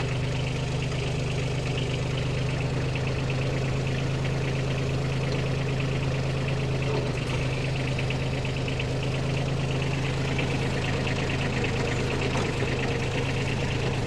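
Kubota B2401 compact tractor's three-cylinder diesel engine running steadily, a low even hum with a fast light diesel clatter over it.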